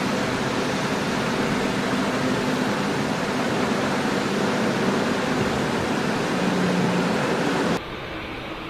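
Steady rushing jet-engine noise from taxiing airliners, with a faint low hum in it; it drops abruptly to a quieter level near the end.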